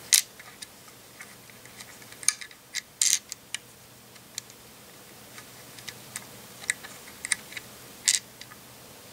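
Scattered light clicks and taps of small plastic LEGO parts being handled, as a minifigure briefcase is worked into a LEGO car's trunk. The louder clicks come about three seconds in and near the end.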